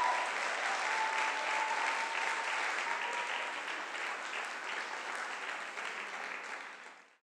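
Audience applauding, a dense patter of many hands clapping, with one long held cheer in the first few seconds. The applause fades out and stops just before the end.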